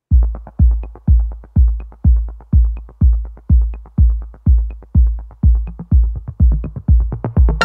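Electronic background music: a heavy bass drum beat about twice a second with light ticks between.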